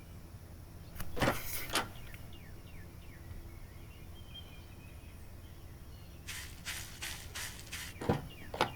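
Steady outdoor background with faint bird chirps, broken by a couple of short noisy sounds about a second in and a quick run of short sharp sounds near the end.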